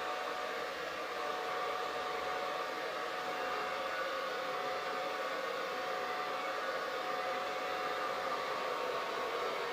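Hair dryer running steadily: an even rushing of air with a constant motor whine.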